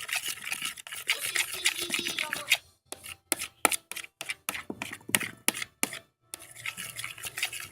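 A small spoon scraping and clicking against a plate while stirring sticky glue and liquid soap into slime. A dense run of scraping gives way to separate sharp taps in the middle, then the scraping resumes.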